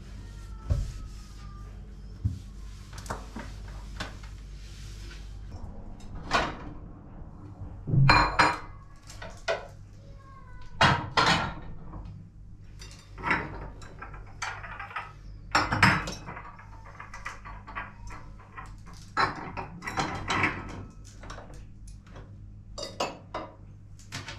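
Dishes and cutlery being handled and put away: a run of separate clinks and knocks, some louder clatters around the middle.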